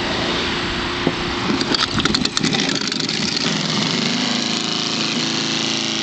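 Garbage disposal motor running with a steady hum, grinding a chunk of raw pumpkin: about a second and a half in comes a run of sharp knocks for about a second as the chunk is chewed, then the hum settles again. The chunk is too big for the disposal to grind well.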